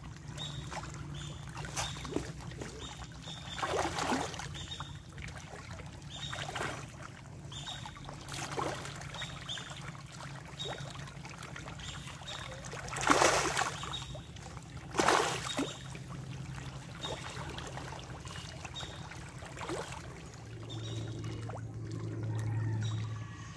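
Small fish splashing at the water surface as a dense shoal churns it, a run of short splashes with two louder ones about two seconds apart past the middle.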